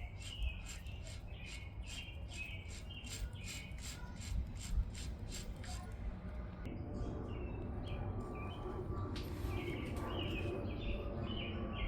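A bird chirping over and over, about two short chirps a second, with a pause midway, above a low steady background rumble.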